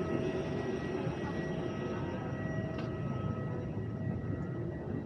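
Steady airliner cabin background noise in an Airbus A321neo: an even rush of air-conditioning and machinery with a few constant whining tones over it.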